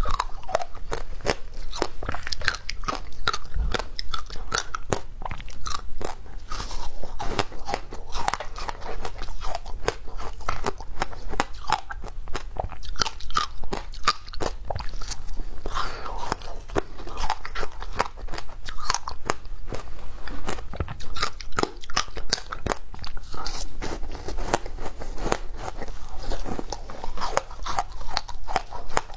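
Frozen passion fruit ice, seeds and all, being bitten and chewed: a dense, continuous run of sharp crunches and cracks as the hard ice breaks between the teeth.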